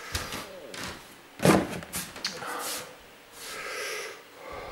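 Knocks and rustling from handling cardboard boxes and household items, with one sharp knock about a second and a half in and a soft rustle later.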